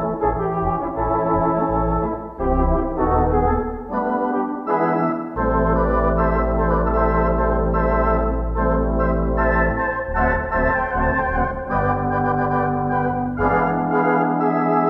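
Theatre organ playing a silent-film accompaniment score: a moving melody over sustained chords, with deep pedal notes held for several seconds at a time from about five seconds in.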